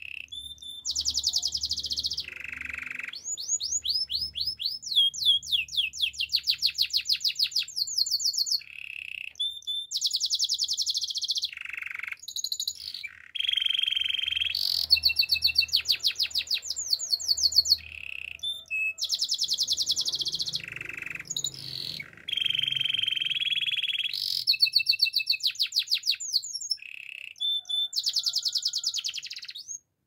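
Domestic canary singing a long, continuous song of rapid trills and rolls. Each phrase is a fast run of repeated notes or a short held note, and a new phrase follows every second or two with only brief breaks.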